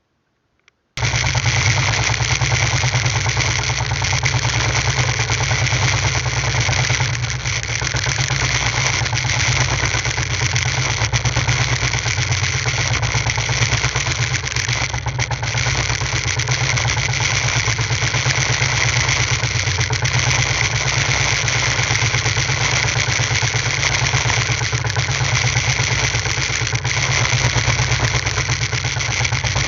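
A small fishing boat's engine running steadily at a constant speed, starting abruptly about a second in.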